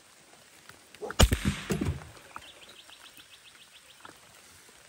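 A single loud thump about a second in, followed by a few softer knocks, then a faint, quick ticking of about ten ticks a second.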